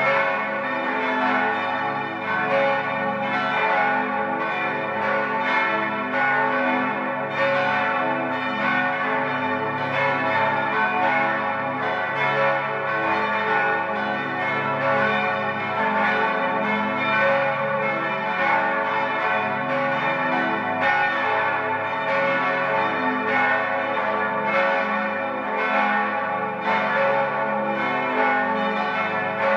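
Five swinging church bells of St. Ottilien Archabbey (bells 2, 4, 5, 6 and 8, tuned a°, c♯′, e′, f♯′ and a′) ringing together in a continuous full peal. The clapper strikes overlap with no pause, over a dense, lasting hum of bell tones.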